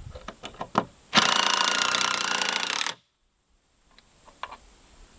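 Cordless impact driver hammering a 2.5-inch screw into 2x6 lumber in one loud burst of about two seconds that stops abruptly, after several light knocks of wood being handled.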